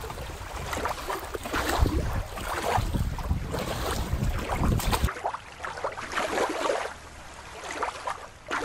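Wind buffeting the microphone over water lapping in the shallows at a rocky shore. About five seconds in, this cuts abruptly to a quieter, duller background.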